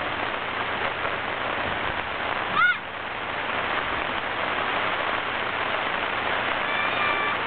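Steady rain, an even hiss. About two and a half seconds in, a brief high chirp rises and falls. Near the end a faint thin whine comes in.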